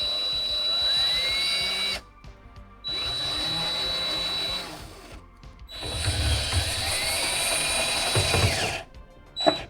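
Power drill run in three bursts, each spinning up to speed and then stopping, over background music.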